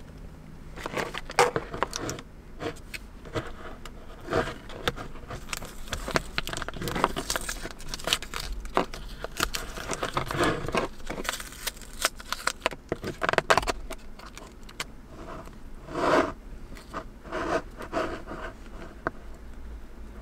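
Objects being handled at close range: a long run of irregular clicks, taps and scrapes with some rustling and crinkling, the sharpest knocks about a second and a half in, around thirteen seconds in and about sixteen seconds in.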